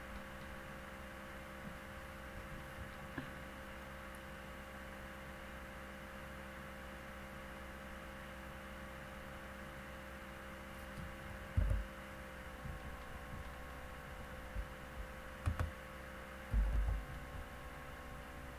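Steady electrical hum made of several faint tones over low room noise, broken by a few dull low thumps about twelve, fifteen and seventeen seconds in.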